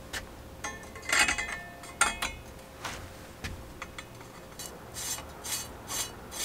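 Metal bicycle headset parts clicking and clattering with a brief ring as they are fitted onto a steel fork's steerer tube, then a run of short scraping rubs, about two a second, as the parts are worked by hand at the top of the head tube.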